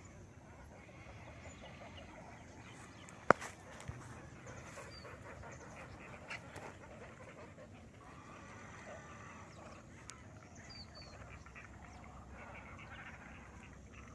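Faint animal calls with several short high chirps, typical of birds. A single sharp click about three seconds in is the loudest sound.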